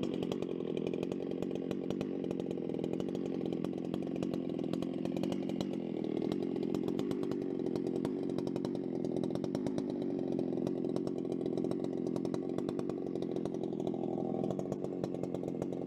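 Chainsaw on an Alaskan chainsaw mill running steadily, its engine held at an even pitch throughout.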